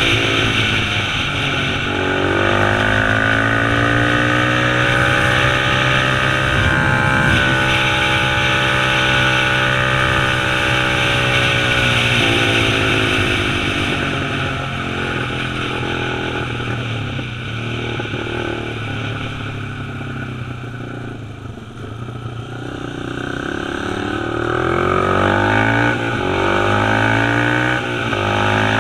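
Dirt bike engine pulling up through the gears, its pitch climbing and dropping back at each shift, with wind rushing past. Around the middle it eases off and the pitch falls, then it accelerates up through the gears again near the end.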